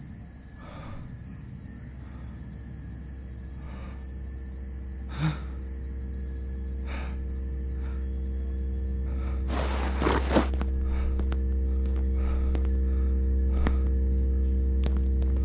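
A low sound-design drone of steady held tones, swelling slowly in loudness, with a man's heavy breaths at intervals and a short rushing burst about ten seconds in.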